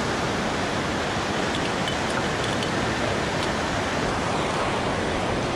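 Steady, even rush of whitewater rapids churning through an artificial rafting channel below.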